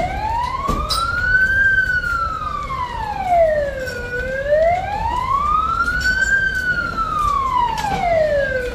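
Emergency vehicle siren sounding a slow wail, its pitch rising and falling about once every four to five seconds.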